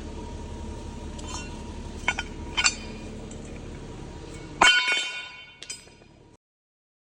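Metal objects clinking a few times, then one louder metallic clank that rings briefly. A steady low hum underneath stops at the clank.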